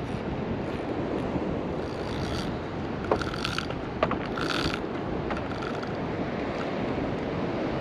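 Surf and wind on the microphone, a steady rush. Over it come a few brief mechanical clicks and whirs about two, three and four seconds in.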